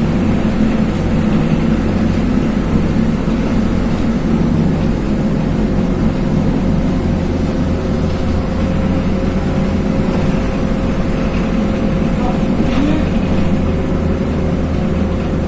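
Cabin noise inside a LiAZ 5292.21 low-floor city bus under way: the engine and road noise run steadily at cruising speed, with a thin steady whine above the rumble.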